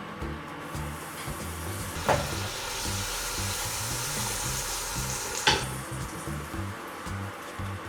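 Aloo paratha frying in butter on a hot pan, sizzling steadily, with two sharp knocks, about 2 s and 5½ s in. Quiet background music underneath.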